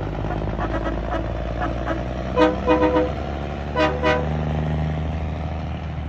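Multi-tone train horn on a green-and-white Peterbilt concrete mixer truck, sounded in short chord blasts: three quick toots about two and a half seconds in and two more near four seconds, with fainter ones before them. Under the horn, the truck's diesel engine runs steadily as the truck moves off.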